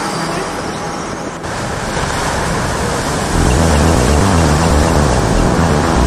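Large sea waves breaking on a rocky, cobbled shore: a steady rush of surf that gets louder a little past halfway.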